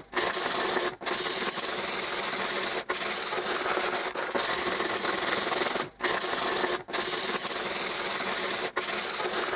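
Fine sandpaper rubbed by hand back and forth over the copper face of a copper-clad PCB blank, cleaning dirt off the copper layer. A steady scratchy rasp with short breaks every second or two as the strokes are shifted.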